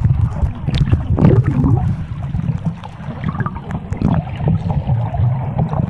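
Water heard through a camera held underwater: a muffled, continuous low rumble and sloshing, with scattered small clicks and crackles.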